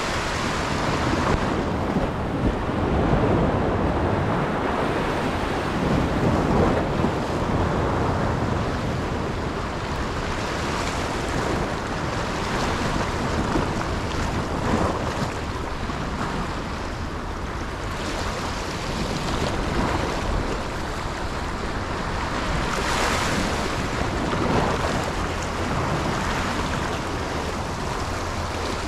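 Sea waves and wind, with wind buffeting the microphone: a steady rushing noise that swells and eases irregularly every few seconds.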